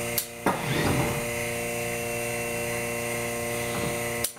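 A steady electric machine running in the workshop, a hum and whine made of several steady tones, that cuts off abruptly near the end.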